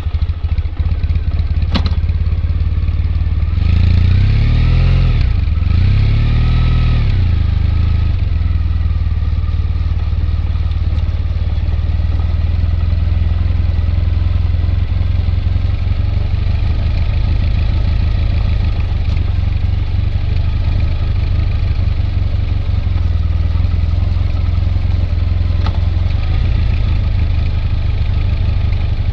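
Triumph Bonneville T214's air-cooled 360° crank vertical twin idling just after starting, blipped twice a few seconds in with the revs rising and falling each time, then settling back to a steady idle.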